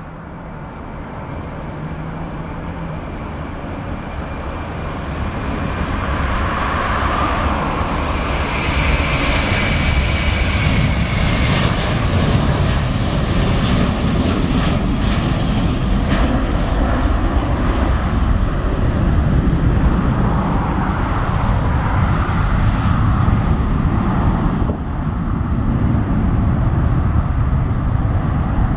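An Airbus A330-300's twin Pratt & Whitney turbofan engines at takeoff thrust, swelling from a distant rumble to a loud, steady deep rumble as the jet rolls, lifts off and climbs out. A high engine whine rides over it for a few seconds about a third of the way through.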